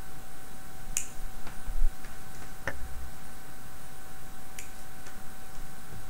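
Tamiya rubber track links clicking as they are pressed together by hand: about five sharp clicks, irregularly spaced. The loudest, about two and a half seconds in, comes with a dull knock.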